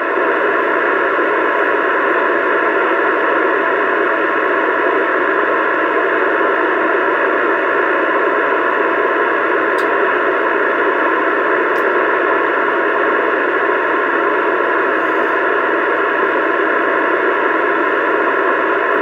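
CB radio hissing loud and steady through its speaker, an unbroken rush of static with no voice on the channel. It cuts off abruptly just at the end.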